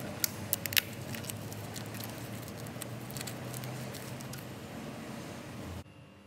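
Plastic bag crinkling with sharp clicks and taps as a plastic-wrapped pressure gauge is handled, the clicks loudest in the first second, over a steady low hum. The sound drops away abruptly near the end.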